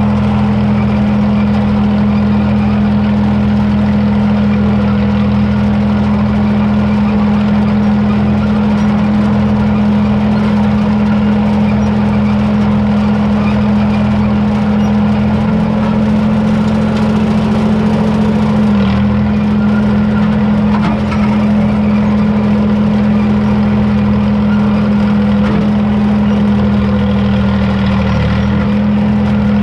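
Diesel engine of a small John Deere crawler dozer running steadily at high throttle, with brief slight dips in pitch around two-thirds of the way through and near the end.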